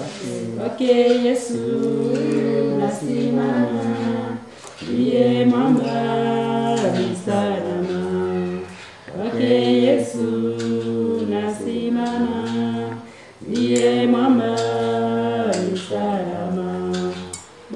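Unaccompanied choir singing in harmony: several voices hold notes together in phrases of about four seconds, with short breaks between them.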